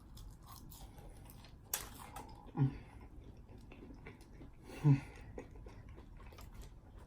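Close-up chewing and mouth sounds of a person eating, with soft clicks and smacks. Two brief vocal sounds come about two and a half and five seconds in.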